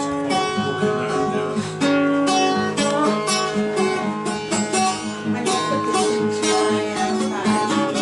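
Acoustic guitar strummed in a steady rhythm, an instrumental stretch of a live song with no singing.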